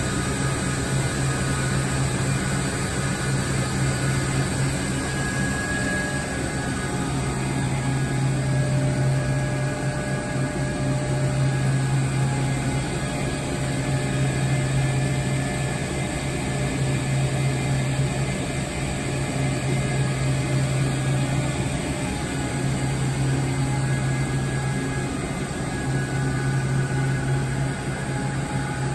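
Steady low hum of a powered-up Mazak Nexus 510C CNC vertical machining center idling, a constant drone with faint higher tones and no cutting or distinct strokes.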